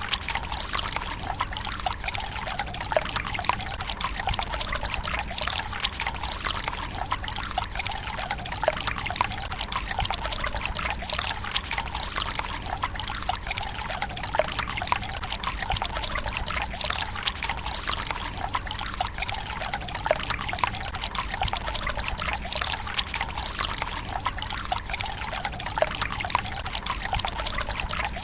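Water from a bamboo spout pouring into the stone basin of a Japanese tsukubai: a steady trickle and splash that never lets up.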